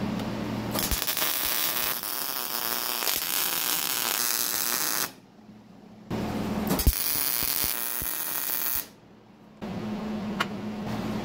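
A small electric motor, likely a handheld power tool, whirring steadily in two stretches of about four and three seconds, each cut off abruptly.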